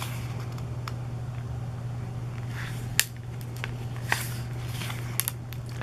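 Pages of a hardcover photo book being turned by hand: soft paper swishes and a few light clicks, the sharpest about three seconds in, over a steady low hum.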